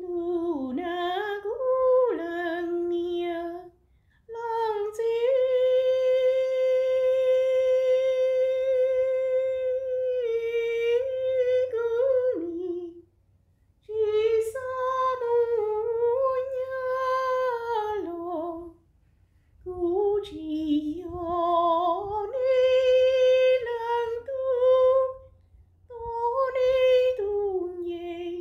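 A woman singing a Hmong folk song unaccompanied: long, slow phrases of held notes with a wavering vibrato, each phrase followed by a short pause.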